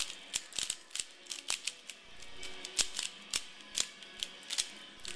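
A FangCun 3x3 speed cube being turned quickly: an irregular run of sharp plastic clicks, several a second, over faint background music.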